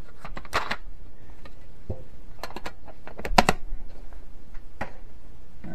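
Colored pencils and their set being handled, making a scatter of light clicks and knocks, with the loudest knock about three and a half seconds in.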